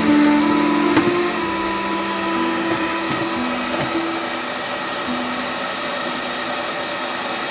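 Steady whooshing of a handheld hot-air blower running without pause, of the kind used to soften headlight lens sealant. Background guitar music is heard over it and fades out about halfway through.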